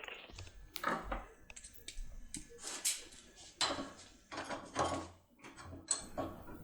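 Irregular light metallic clicks and scrapes of a locksmith pick tool being worked inside a POLLUX INOUI pin-tumbler cylinder lock.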